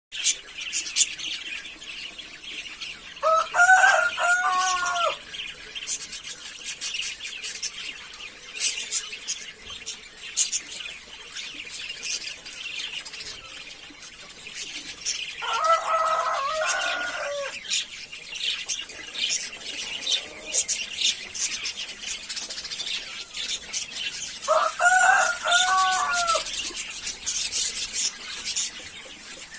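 Budgies chirping and warbling continuously in a busy chatter. Three louder, lower, drawn-out calls from another bird stand out about 4 seconds in, near the middle and near the end.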